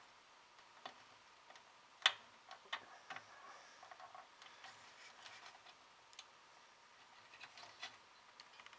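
Faint scattered clicks and light handling of a small plastic wire connector being worked onto the pin header of a Commodore 1541 disk drive's circuit board, with one sharper click about two seconds in.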